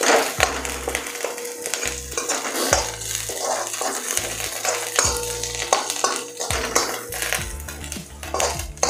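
Metal spoon scraping and knocking against a metal kadhai, tossing fried vegetable Manchurian balls with chopped onion and garlic, over a frying sizzle. The strokes come repeatedly, a few each second.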